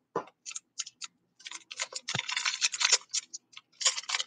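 Clear plastic wrapper on a pack of trading cards crinkling and crackling as it is peeled and torn open by hand. A few separate crackles come first, then dense crinkling from about a second and a half in, with a soft knock about two seconds in.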